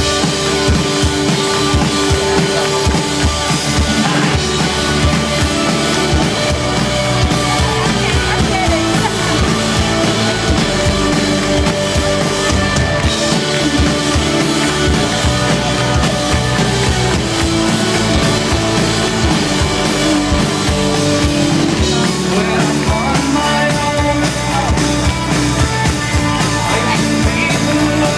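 Live rock band playing through the stage sound system: drum kit and electric guitars in a steady, driving song.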